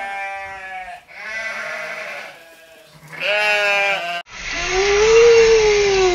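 Sheep bleating: three wavering bleats, one after another. About four seconds in they cut off and loud rock music starts suddenly.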